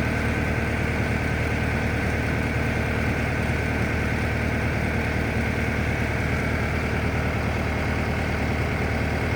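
Engine idling steadily, an even unbroken hum.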